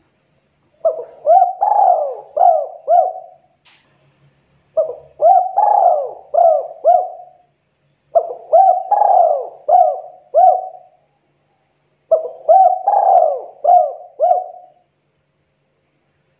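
Spotted dove cooing: four phrases of about five arching coo notes each, with a gap of a second or so between phrases.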